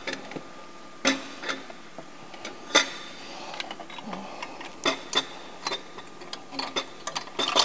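Irregular metal clinks and knocks as a 3-inch turbo downpipe is lowered into an engine bay and worked onto its mounting bolts. The sharpest knock comes about three seconds in.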